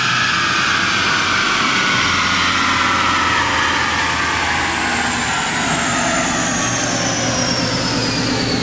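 Twin-turbo 2003 Mustang Cobra's 4.6-litre V8 running on a chassis dyno just after a pull, over a steady rushing noise, while a high whine slowly and steadily falls in pitch as the spinning parts wind down.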